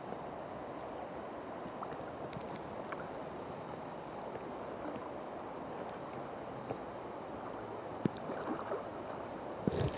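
River water flowing and lapping right at a camera held at the waterline, a steady rushing, with a few sharper ticks and splashes near the end.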